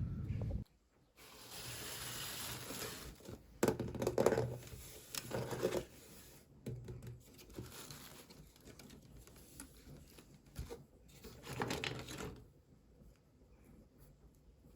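Toy packaging being torn open and crinkled by hand: irregular rustling and tearing with scattered small clicks, fading to a few faint rustles near the end.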